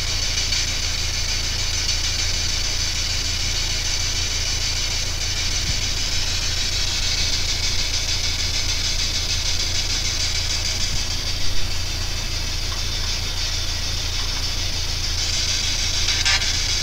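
P-SB7 spirit box (ghost box) running, a steady radio-static hiss over a low hum, with a brief louder burst near the end.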